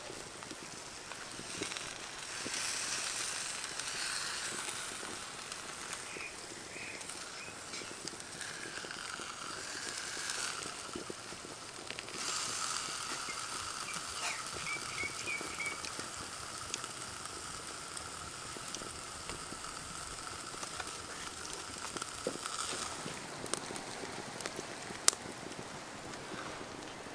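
Outdoor background noise: a steady hiss, with a faint held tone through the middle and a few short high chirps and small clicks.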